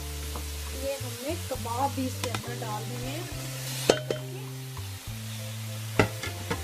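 Background music with steady held chords. Over it, pieces of seekh kebab are dropped into a metal cooking pot with a few light knocks, and two sharp knocks about four seconds in and about six seconds in are the loudest sounds.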